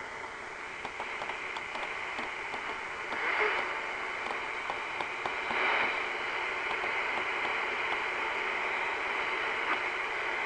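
Royce 639 CB radio's speaker hissing with steady AM static and interference hash on an otherwise empty channel. There are faint clicks and two brief swells in the noise, about three and six seconds in. The owner blames the interference on a PLC (power-line communication) source.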